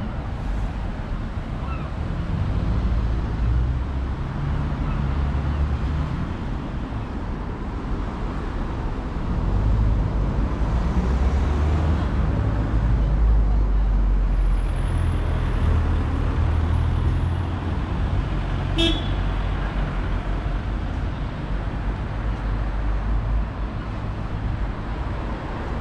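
Road traffic on a wet town street: a low rumble that swells and fades as cars pass. There is one short, sharp chirp about three-quarters of the way through.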